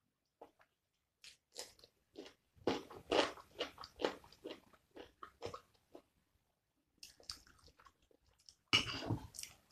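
Biting and chewing a raw cucumber slice up close: a run of crisp crunches, several a second, then a louder burst of crunching near the end.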